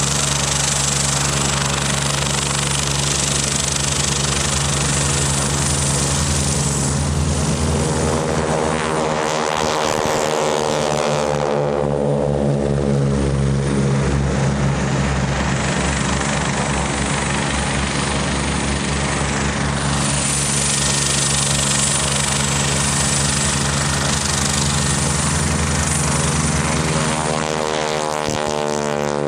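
Radial piston engines of T-6/SNJ Texan trainers, Pratt & Whitney R-1340 Wasps, running at takeoff power as the planes climb out past, the sound sweeping as a pair passes about eight to fourteen seconds in and again as a third lifts off near the end. Under it runs a steady low engine drone from a helicopter running close by.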